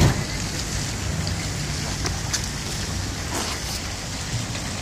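A steady low engine hum, with a sharp knock right at the start.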